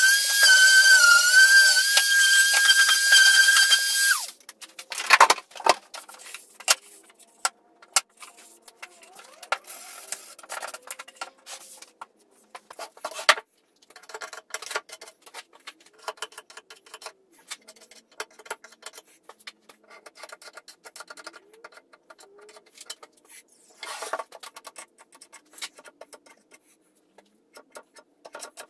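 A small handheld power tool's motor whines at a steady high pitch, sagging slightly once under load, and stops about four seconds in. A loud knock follows about a second later, then scattered light knocks and clicks of wooden pieces being handled on the bench.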